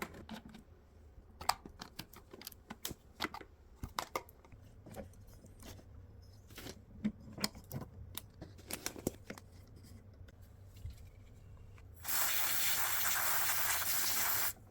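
Scattered light clicks and knocks, then about twelve seconds in a steady hiss of WD-40 aerosol spray for about two and a half seconds, cutting off suddenly. The lubricant is being sprayed into a stiff fan motor's bushing, the cause of the fan turning slowly.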